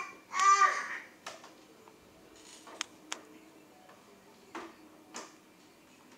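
A toddler's short sung vocalizing near the start, followed by about five sharp plastic clicks and taps as a toy microphone and toy keyboard are handled.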